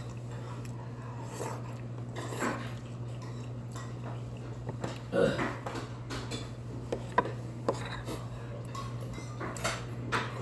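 Metal spoon clinking and scraping against a heavy black bowl, with a few sharp clicks, over a steady low hum.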